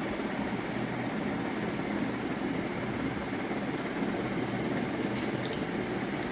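Steady low rumbling noise with a faint hum and a few faint clicks, unchanging throughout.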